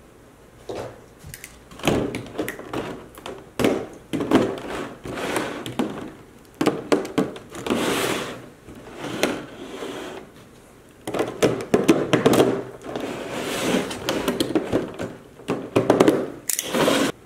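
Stiff clear plastic blister packaging being handled and cut along its seam with a knife: irregular crackling and rustling of the plastic with sharp clicks and knocks as the halves are worked apart.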